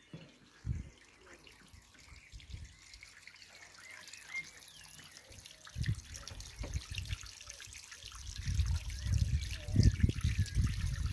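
Small garden pond water feature: water trickling and splashing down a stone channel into the pond. Low, irregular buffeting on the microphone grows louder in the second half.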